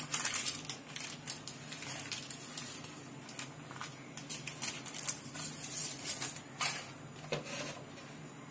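Butter paper (baking parchment) rustling and crinkling in short, scattered bursts as hands peel it away from the bottom of a baked cake.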